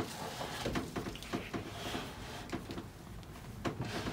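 Irregular light knocks and scrapes of hands working on a rough chainsaw-carved wooden gnome.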